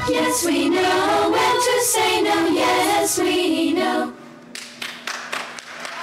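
Several voices singing a song with accompaniment, which cuts off abruptly about four seconds in; a few faint sharp taps follow.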